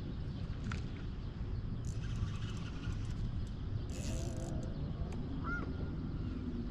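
Steady low outdoor rumble, with brief bursts of high clicking and hiss about two and four seconds in, and a single short bird chirp about five and a half seconds in.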